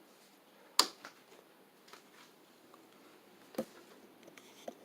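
A sharp click about a second in as a ceiling fan's wall control is switched to high speed, then a second, quieter click a few seconds later, over a faint steady background.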